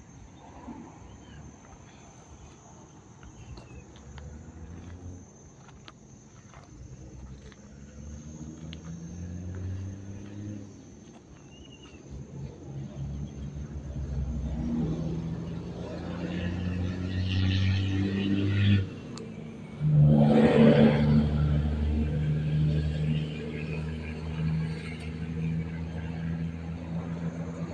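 Motor vehicle engines passing and running, faint at first and growing louder, with pitches that rise and fall. About twenty seconds in, a louder engine sound starts suddenly and holds steady.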